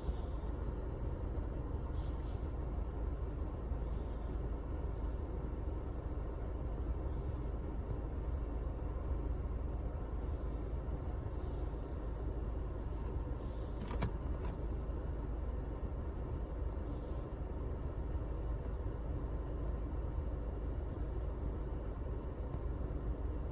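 Steady low rumble of a car's cabin background, with a faint click about two seconds in and another more than halfway through.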